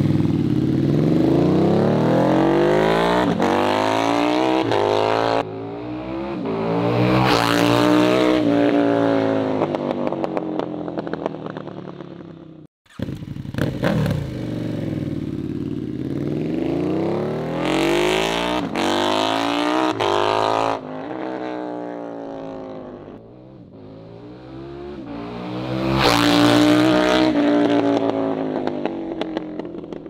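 KTM 1290 Super Duke R's V-twin engine through an Austin Racing RS22 full titanium exhaust, accelerating hard through the gears: the note climbs, drops at each shift and climbs again, then falls and fades as the bike rides off. First in the exhaust's street-legal setup; after a sudden break about 13 seconds in, a second run in its louder race setup, again rising through the gears and fading near the end.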